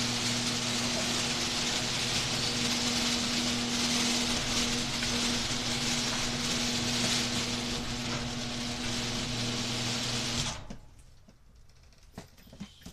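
Electric garage door opener running with a steady hum and rattle as it drives the door, stopping abruptly about ten and a half seconds in; a few faint knocks follow.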